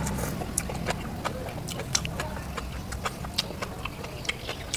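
Irregular sharp clicks and taps, about two or three a second, over a low steady hum.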